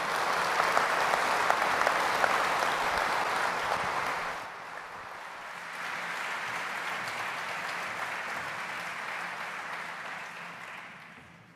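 Audience applauding: loud for the first four seconds or so, dipping briefly, then continuing more softly and dying away near the end.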